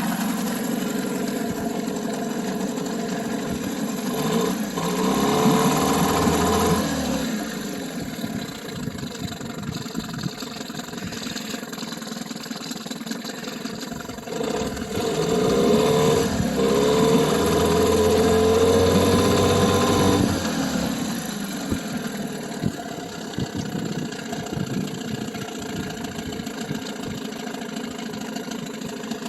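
Johnson 9.9 hp outboard motor running just after its first start, warming up, with the cooling water pump pushing its tell-tale stream. It idles steadily, and the revs rise and fall twice: briefly about five seconds in, and for several seconds around the middle.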